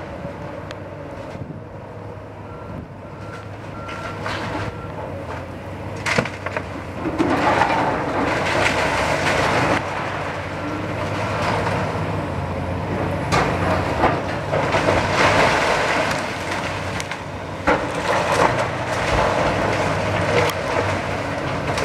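Komatsu hydraulic excavator's diesel engine running steadily while it demolishes a brick building, with crunching and crashing of brick and debris and several sharp knocks. The crashing grows louder from about a third of the way in.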